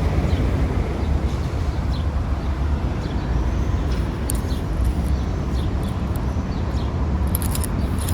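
Steady low rumbling background noise, with a few faint high clicks about four seconds in and near the end.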